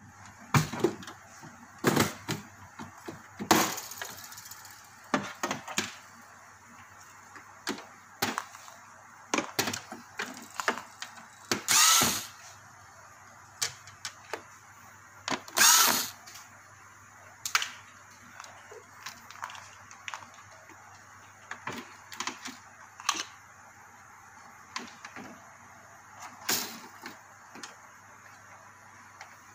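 Plastic clicks, knocks and snaps at irregular intervals as the air cooler's plastic top panel is pried open and its control circuit board is handled. Two louder noises of about half a second each come near the middle.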